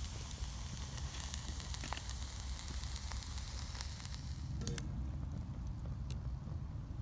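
Garlic, mushrooms and onion sizzling in a pan over a small wood-burning stove, with scattered crackles from the wood fire. The sizzle dies down about two-thirds of the way through, just after a couple of sharp clicks.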